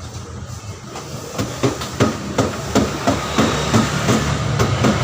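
A series of sharp knocks, about two to three a second, starting about a second in, over a steady low hum.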